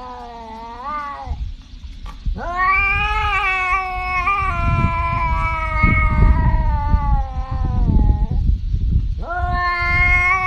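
A cat yowling in long, drawn-out meows: one ends about a second in, then a single call of about six seconds holds its pitch and falls away at the end, and another starts near the end. A low rumble sits underneath the long call.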